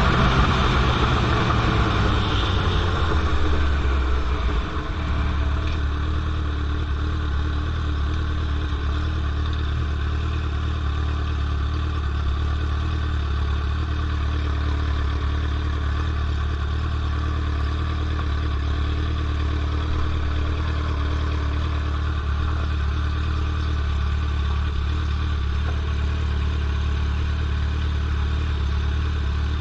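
2003 Yamaha R1's straight-piped inline-four engine coming down from higher revs, its pitch falling, and settling about five seconds in to a steady idle.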